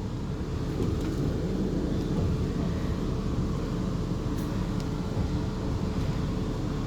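Steady interior noise aboard a Class 450 Desiro electric multiple unit: a continuous low rumble with a steady hum underneath and a few faint ticks.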